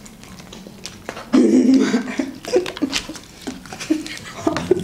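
Two people chewing sticky sour fruit leather (pastila), with wet mouth clicks. About a second and a half in comes a muffled, closed-mouth burst of laughter, and giggling picks up near the end.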